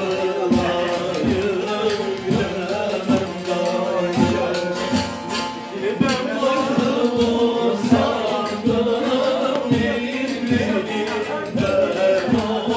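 Live Turkish folk music: three bağlamas (saz) strummed with a steady beat while men sing a slow song.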